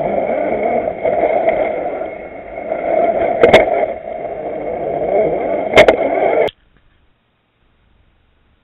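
Electric motor and gears of a 1/6-scale RC Willys Jeep crawler whining steadily as it drives over rubble, with two sharp knocks partway through. The sound cuts off suddenly about six and a half seconds in.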